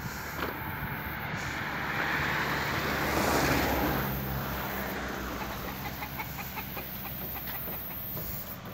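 A motor vehicle passing by, its engine and tyre noise swelling to a peak about three and a half seconds in, then fading. A run of faint quick ticks follows near the end.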